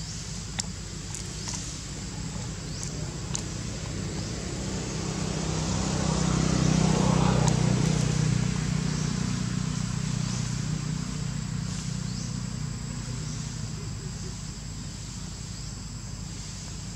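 A motor vehicle's engine hum swells and then fades as it passes by, loudest about midway. A steady high insect drone runs underneath, with a few short chirps.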